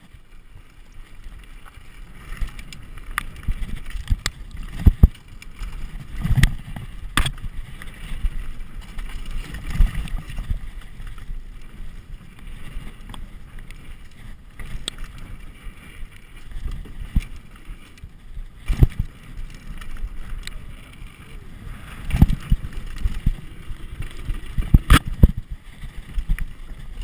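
Mountain bike riding down a dirt and gravel trail, heard from a camera mounted on the rider: a steady low rumble of tyres and wind on the microphone, broken by sharp knocks and clatter as the bike hits bumps and lands jumps, several of them loud.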